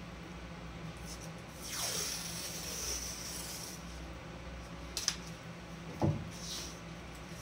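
Tape being pulled off its roll and pressed onto a wooden painting panel: a rasping hiss lasting about two seconds, starting about two seconds in, then a sharp click and a knock about a second apart.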